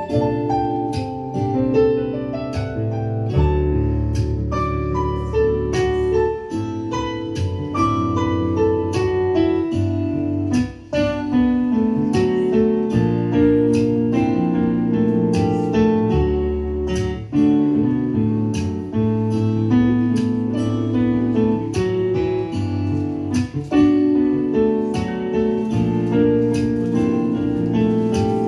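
Live jazz on a Yamaha MO8 synthesizer keyboard played with a piano sound: chords over a moving bass line, with many short, struck notes.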